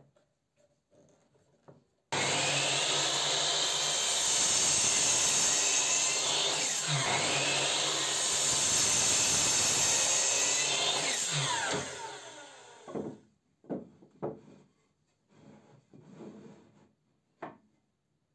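An electric woodworking power tool switches on abruptly and runs loudly, cutting pine for about ten seconds, with its pitch dipping under load. It then winds down, followed by a few sharp knocks of wood being handled.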